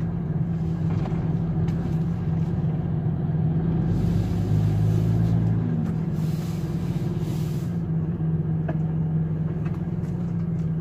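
Lorry engine running with a steady low drone, heard inside the cab while driving, with a brief hiss of air about six seconds in.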